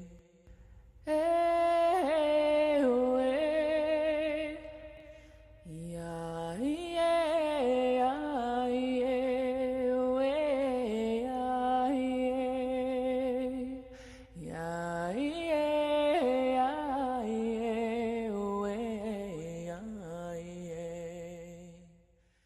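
A woman's voice singing a slow, chant-like melody with vibrato in three long phrases over a low steady hum, fading out at the end.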